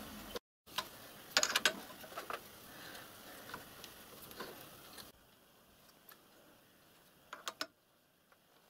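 Metal lathe being handled with its motor off: a few sharp metallic clicks and clunks, a quick cluster of the loudest about a second and a half in, a few single ones after, and two more near the end.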